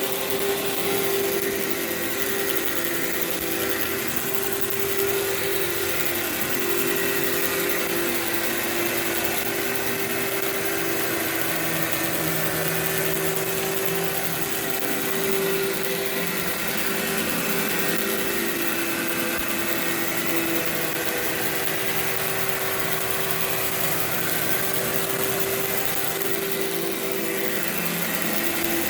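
Workhorse vacuum cleaner running steadily on carpet, its motor giving a steady whine over the rush of suction as it pulls carpet freshener powder out of the fibers.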